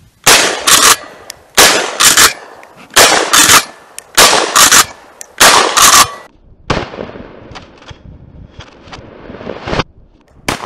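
12-gauge Mossberg Maverick 88 pump-action shotgun fired rapidly with Aguila mini shells fed through an OPSol Mini Clip adapter: loud shots in quick pairs for about six seconds, the gun cycling the short shells without a stoppage. After that comes a quieter stretch with a few faint clicks.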